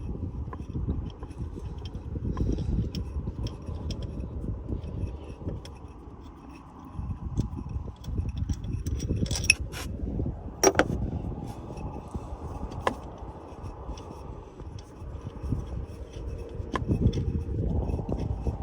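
Metal tools and bolts clinking and scraping as the last two splined E12 bolts are undone and drawn out of a crankshaft pulley by hand. A few sharp metallic clicks come a little past halfway, over an uneven low rumble of handling noise.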